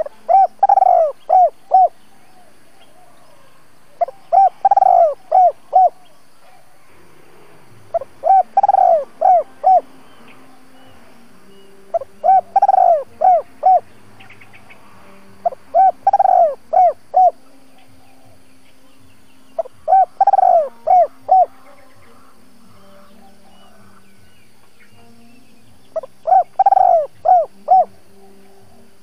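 Spotted dove singing its cooing song, the "double-voiced" call used by a decoy bird to provoke wild doves. It comes seven times, about every four seconds, with a longer pause near the end. Each phrase is a short lead note, a longer coo and three quick short notes.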